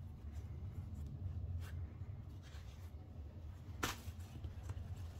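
Faint rustling of hands handling a crocheted yarn doll as its knitted top is buttoned and smoothed, over a steady low hum, with one sharp click a little under four seconds in.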